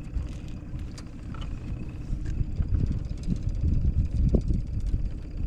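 Wind buffeting the microphone: an uneven, gusting low rumble, louder in the second half, with a few faint clicks.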